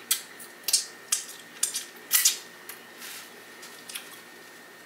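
Close-miked chewing of a mouthful of food: a string of sharp, wet mouth smacks and clicks at irregular intervals, roughly every half second.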